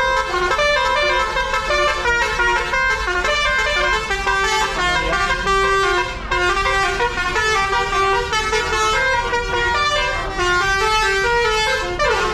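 A Basuri tour bus's telolet horn playing a fast melody of changing horn notes without a break. A falling note slides down near the end.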